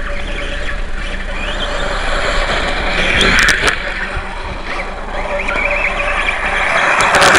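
Atomik MM450 RC motorcycle running on loose dirt: a high motor-and-drivetrain whine that rises and falls with the throttle. It swells loudest about three and a half seconds in and again near the end, with a few sharp ticks at those peaks.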